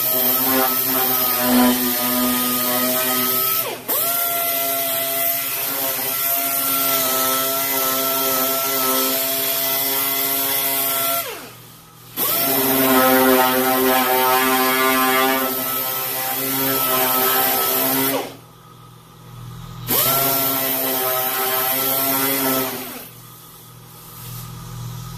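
Pneumatic sander sanding body filler on a steel door panel. It runs in four spells of several seconds, each spinning up with a rising whine, holding steady, then winding down, with brief stops between. It stops near the end.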